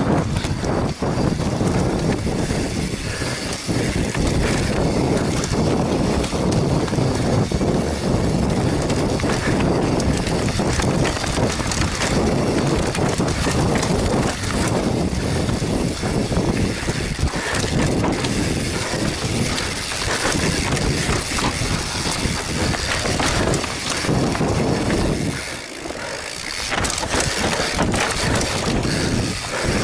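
Mountain bike ridden fast down a dirt forest trail, heard from a helmet-mounted camera: a constant rush of wind and tyre noise, with the bike rattling and knocking over bumps. The noise eases for a moment about 25 seconds in.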